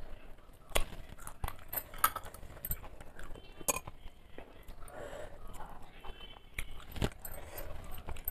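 Close-miked eating sounds: chewing a mouthful of rice and curry, then fingers squelching and mixing rice with dal on a steel plate. Irregular small clicks and clinks against the metal plate.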